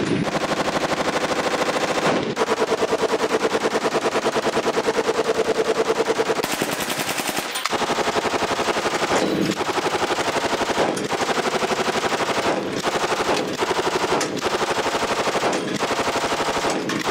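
Belt-fed light machine gun firing fully automatic: two long continuous bursts of several seconds each, then a run of shorter bursts of a second or two with brief breaks between them.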